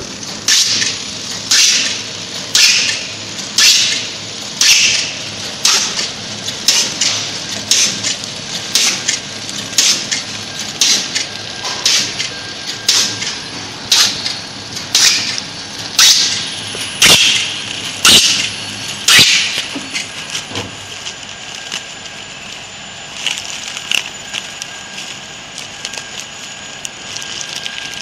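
Bread and cake flow-wrapping packing machine starting up and running, cycling about once a second: each cycle a sharp snap with a brief hiss as a pack is sealed and cut. After about 20 seconds the loud strokes stop, leaving the machine's lighter ticking and a faint steady whine.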